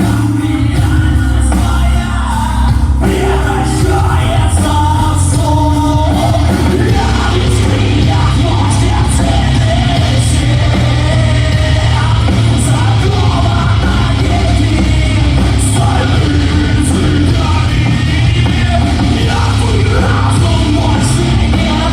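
Live rock band playing loudly, with a vocalist singing and shouting over heavy bass and drums, the sound echoing in a large hall.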